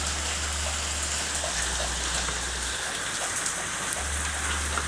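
Steady rain falling, an even, constant hiss.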